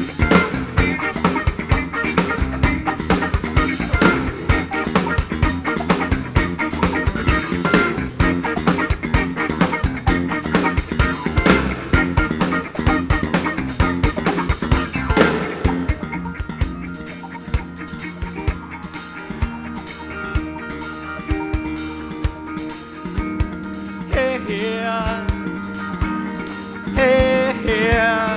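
Rock band playing an instrumental passage live, drum kit and guitars together. About halfway through the drumming thins out and held notes carry on, with a wavering melodic line near the end.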